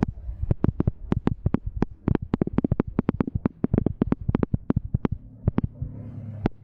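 Airsoft guns firing: a fast, irregular string of sharp shots, several a second and varying in loudness, over a low rumble.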